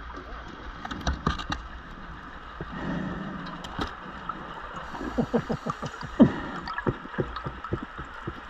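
Underwater bubbles from a diver's breathing gear gurgling past the camera, with scattered clicks and knocks. A quick run of gurgles comes in the second half, the loudest about six seconds in.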